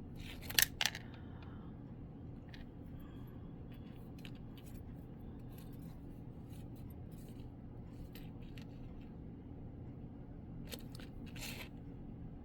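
Metal bolo ties clicking against each other as they are handled, with two sharp clicks about half a second in and then faint scattered ticks over a steady low hum.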